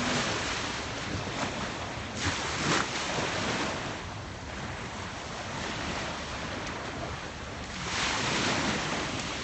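Small sea waves washing in and out at the shoreline, with wind buffeting the microphone. The wash swells about two seconds in and again near the end.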